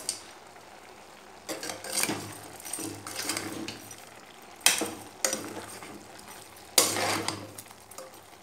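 Metal spoon stirring chicken pieces in an open pressure cooker, mixing in salt and spice powders: scraping strokes against the pot, with two sharp clanks of the spoon on the rim about halfway through and near three-quarters through.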